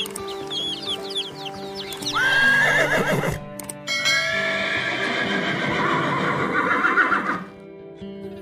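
Chicks peeping rapidly for the first two seconds, then horses whinnying: a short neigh about two seconds in and a long, quavering whinny from about four to seven seconds, over background music.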